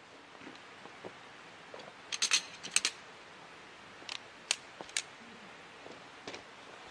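Sharp metal clicks and clinks from a tent pole being handled and fitted together: a quick cluster about two seconds in, then single clicks around four, four and a half and five seconds, over a soft steady outdoor hiss.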